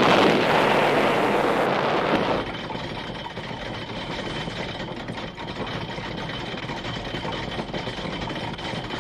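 Rushing noise of a bombing raid's explosions that dies away after about two and a half seconds into a steady, lower, engine-like rumble.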